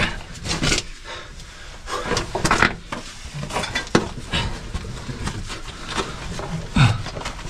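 A person crawling on his stomach through a tight cave squeeze: body and clothing scraping and rubbing over clay and rock in irregular scuffs and knocks, with a short falling grunt of effort near the end.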